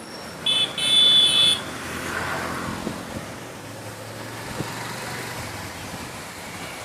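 A vehicle horn sounds twice about half a second in, a short blast and then a longer one, over the steady noise of a motor vehicle running.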